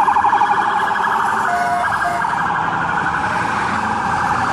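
Emergency vehicle siren sounding a fast warbling yelp, loud and continuous, with a short lower tone breaking in about one and a half seconds in.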